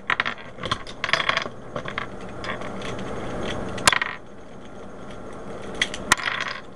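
Plastic Rubik's Cube being pried apart by hand, with quick clicks and scraping of stiff pieces that have not been broken in. Two sharp clacks as pieces pop out and drop onto the table stand out about four and six seconds in.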